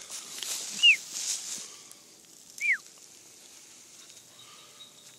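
Footsteps rustling through dry undergrowth for the first couple of seconds. Two short, high-pitched whistles each fall in pitch, about a second in and again a little before the middle; the first is the loudest sound.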